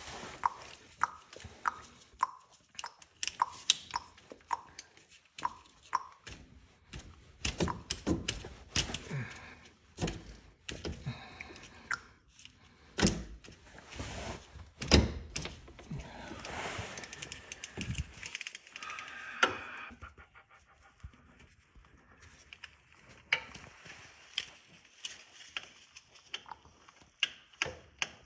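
Clinks, clicks and knocks of hand tools and metal parts being handled during the oil change, with a run of evenly spaced clicks over the first few seconds and a couple of heavier knocks midway.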